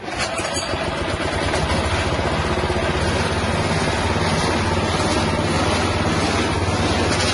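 The 6.5 hp engine of a spice-grinding machine starts suddenly, builds up over about a second and a half, then runs steadily at speed.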